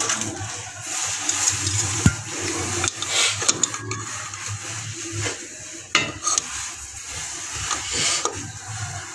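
Metal clinking and scraping of a wrench working the nut of a braided connection hose on a chrome angle valve, with a couple of sharp clicks, about two seconds in and again near six seconds.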